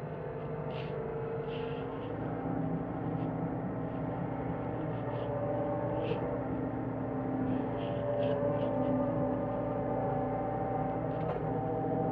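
John Deere 325G compact track loader's diesel engine running steadily, with short high squeaks and clicks now and then.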